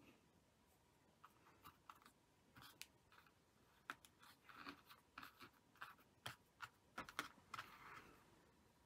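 Faint small clicks and rustles of hands handling a tatted lace doily and its cotton thread on a tabletop, coming thickest from about four to eight seconds in.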